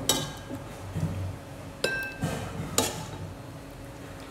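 Metal ladle clinking against ceramic bowls and the pot as boiled dumplings are served. There are three sharp clinks, each with a brief ring: one right at the start, then two about a second apart in the middle.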